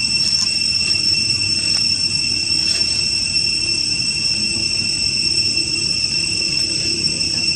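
Insects droning steadily, an even high-pitched buzz, with a low steady rumble underneath.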